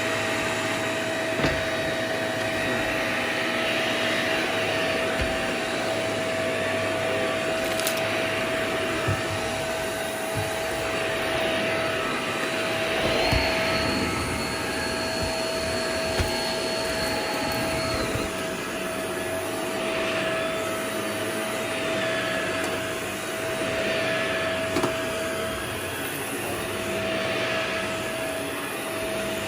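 Vacuum cleaner running steadily with a constant motor whine, with a few short clicks and knocks along the way.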